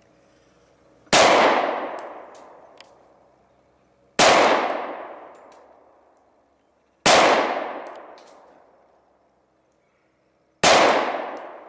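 Four pistol shots from a Glock 20 in 10mm, firing 230-grain hard-cast bullets through a Lone Wolf aftermarket barrel, roughly three seconds apart. Each shot rings out in a long echo that dies away over about two seconds.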